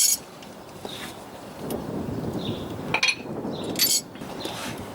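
A few sharp metallic clinks and knocks with scraping and handling noise as a suspension control arm and its bolts are worked into position.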